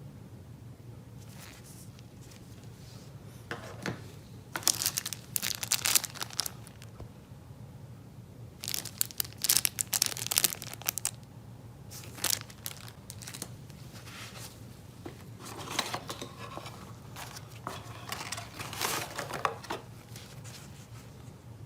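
Packaging being handled during a phone unboxing: crinkling and tearing rustles in four spells of a few seconds each, over a low steady hum.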